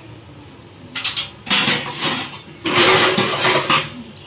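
Steel kitchen utensils being handled, a lid and pans scraping and clattering against each other in a few loud bursts after a quiet first second.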